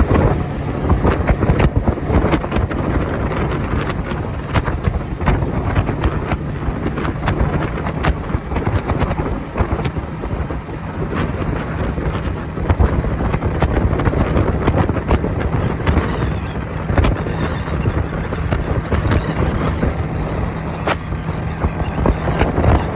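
A boat's engine running steadily under way, a low steady hum under loud rushing wind and water noise with frequent crackling buffets on the microphone.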